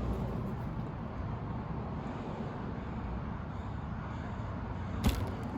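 Steady low background hum with one short, sharp knock about five seconds in: a small 1/24-scale RC truck tipping over onto its side.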